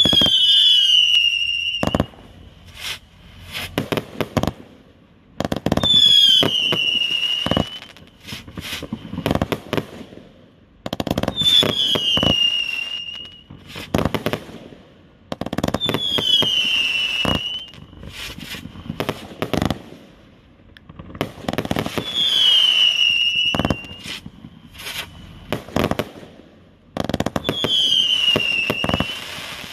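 A 'Rona Killer' 128-shot firework cake firing in volleys about every five and a half seconds. Each volley opens with a descending whistle, followed by a run of sharp bangs and crackling breaks.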